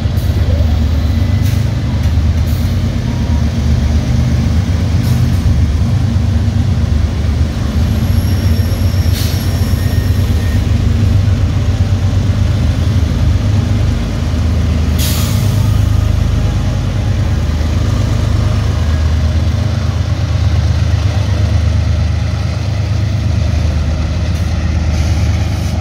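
BNSF freight train passing close by: the diesel locomotives' engines rumble loudly and steadily, then the double-stack container cars roll past, with a brief high tone about nine seconds in and a sharp hiss-like noise about fifteen seconds in.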